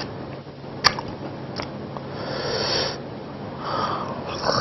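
Close-miked eating sounds: a sharp click about a second in, from chopsticks against a plastic food tray, then a breath drawn in through the nose.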